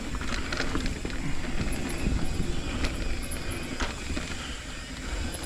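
Mountain bike rolling along a dirt singletrack trail: steady tyre and wind rumble with the bike's frame and parts rattling, and scattered sharp knocks and clicks as the wheels hit roots and rocks.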